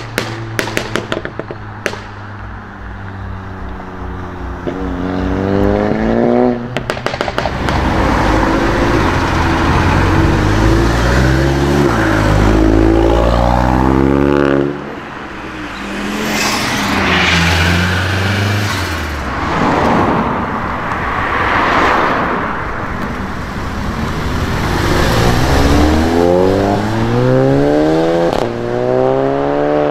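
Volkswagen Golf Mk7 GTI/R exhausts under hard acceleration: a few exhaust crackles and pops at the start, then several full-throttle pulls whose engine pitch rises and steps down at each gear change, with cars passing close by in between.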